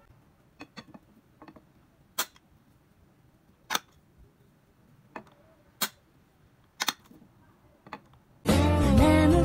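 Sharp clicks of a CAROTE detachable pan handle as it is clipped onto the rim of a non-stick frying pan and its button pressed: about a dozen separate clicks spread over eight seconds, the loudest about two and four seconds in. Near the end a pop song with singing starts abruptly and is louder than the clicks.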